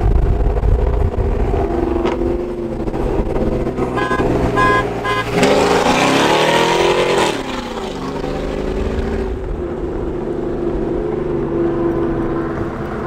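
Pickup truck engine running, with a run of short horn beeps about four seconds in, then the engine revving up and dropping back down around six seconds in.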